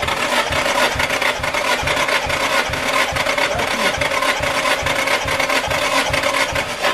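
Nissan SR20DET four-cylinder engine turned over on the starter motor with fuel and ignition cut for a compression test, cranking at an even beat. It starts just before and stops at the end.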